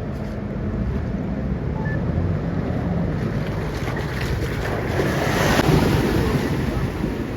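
A 4WD's engine running under load as it drives through water, with rushing, splashing water that swells to its loudest about five seconds in.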